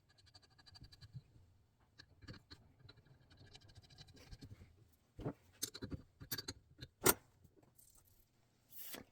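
Small metal carburetor parts being handled on a workbench: faint scattered ticks and light rattling, then a few sharper clicks about five to seven seconds in.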